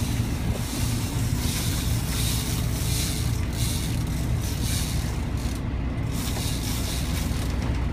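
Fishing boat's engine running steadily under way, a constant low hum. A rushing hiss of wind and water rises over it for a few seconds in the middle.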